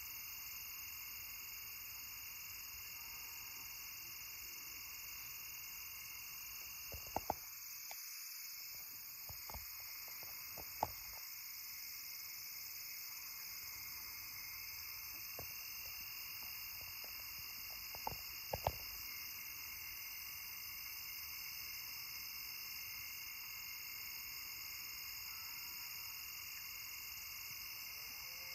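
Steady night chorus of crickets and other insects, several high-pitched trills layered without a break. A few sharp clicks come in two short clusters, about a quarter of the way through and again past halfway.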